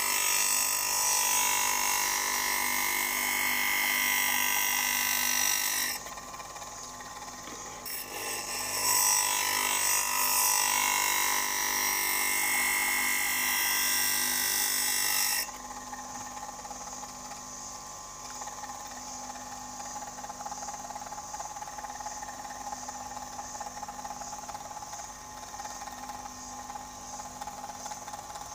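Tungsten-carbide-tipped electric planer blade being ground on a thin wheel spinning on an electric motor: a loud, high-pitched grinding for about six seconds, a short break as the blade comes off, then a second pass until about halfway through. After that the wheel runs free with a quieter steady motor hum.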